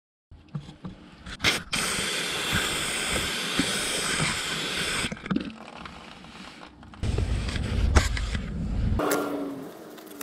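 Aerosol brake cleaner sprayed in one long hissing burst of about three seconds. A few seconds later comes a low rumbling handling noise, then a short falling squeak near the end.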